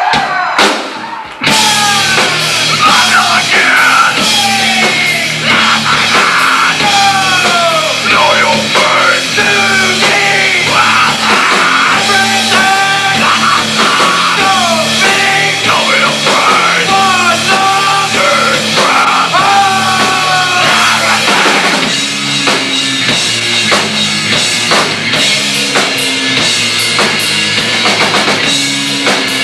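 Live rock band playing loudly on electric guitar and drum kit, with the music kicking in abruptly about a second and a half in.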